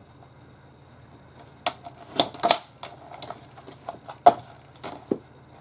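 Fiskars wire-guided paper trimmer trimming cardstock: scattered sharp clicks and light taps, the loudest about four seconds in.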